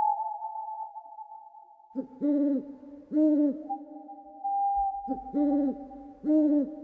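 Owl hooting: four short hoots in two pairs, each hoot rising and falling in pitch, over a held electronic music tone.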